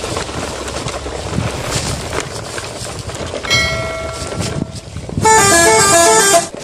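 Steady rustling as toy trucks are pushed through grass. A vehicle-horn sound effect sounds for about a second midway, then a louder multi-note musical horn plays a short stepped tune near the end.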